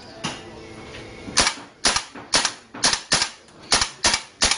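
Airsoft gun firing single shots one after another at an uneven pace, about eight sharp cracks in a little over three seconds.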